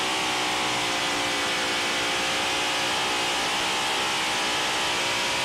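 Twin supercharged engines of a modified pulling tractor running at steady revs, heard close up from on board, one even engine note that holds without rising or falling.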